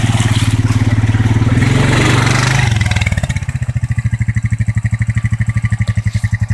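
ATV engine running, with water splashing loudly for the first three seconds or so as the quad drives out of a creek. The engine then settles into a steady, evenly pulsing chug as it rolls on slowly.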